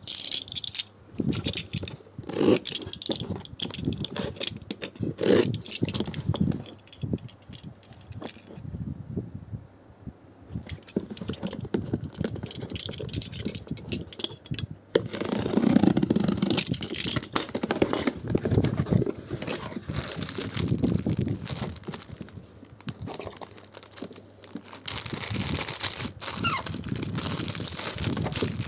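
A taped cardboard parcel box being handled and opened by hand: irregular scraping, knocking and tearing of packing tape. Near the end, a clear plastic bag crinkles as it is taken out.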